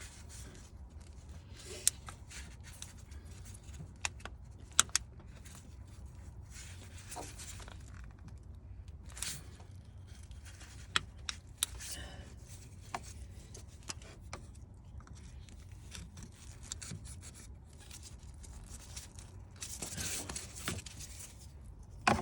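Hands working plastic parts in a car's engine bay: scattered sharp clicks and knocks with stretches of rubbing and scraping, as a plastic sensor connector is pressed and tugged at but will not release.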